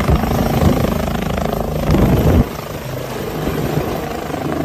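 Helicopter sound effect: rotor blades chopping over the engine, dropping a little in level about two and a half seconds in.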